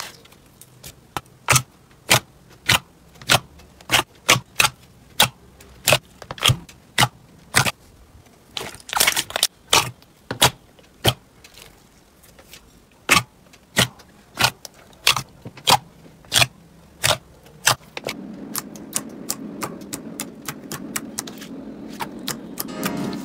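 Clear slime popping and clicking as fingers press into it and pull away, about one or two sharp pops a second. About three quarters of the way in it changes to a denser crackling over a low steady hum.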